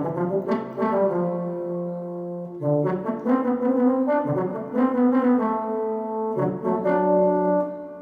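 Yamaha DX7 FM synthesizer playing a brass-like patch: a phrase of sustained chords and notes, with short breaks about a third of the way in and near the end.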